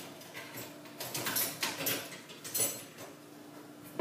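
Several short rustles and scrapes of things being handled, loudest from about one to two seconds in and again briefly at about two and a half seconds.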